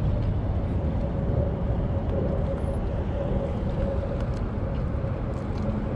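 A steady engine drone: low rumble with a constant mid-pitched hum.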